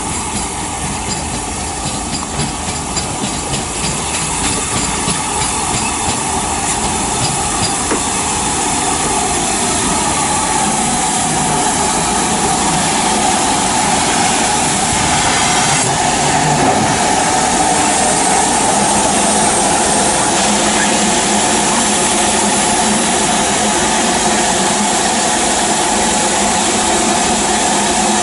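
LMS Stanier 8F 2-8-0 steam locomotive rolling slowly into the platform, with a regular rhythmic beat at first, then a steady hiss of steam that grows louder as it draws alongside.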